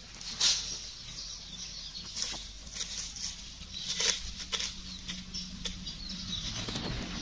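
Leaves and stems rustling and a small hand hoe scraping and chopping in dry soil as peanut plants are dug up and pulled, in irregular scratchy bursts. A low steady hum sits underneath and grows in the last couple of seconds.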